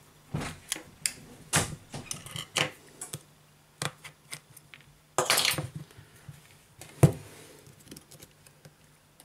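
Small metallic clicks and taps of tweezers and a precision screwdriver working the screws on a smartphone's metal mainboard shield, with a short scraping rustle about five seconds in and a sharp click about seven seconds in. A faint steady hum underneath.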